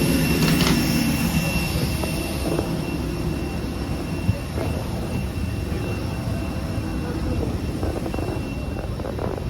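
Steady hum of a parked jet airliner and its ground equipment during boarding, with a thin high whine over it and a lower drone that fades out over the first couple of seconds. A single sharp click about four seconds in.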